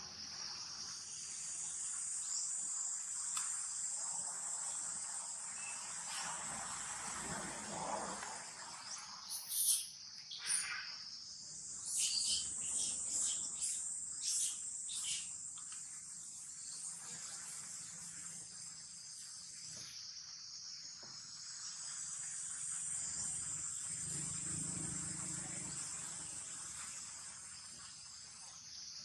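Steady, high-pitched chorus of insects calling continuously in the background, with a run of short, sharp chirps between about ten and fifteen seconds in.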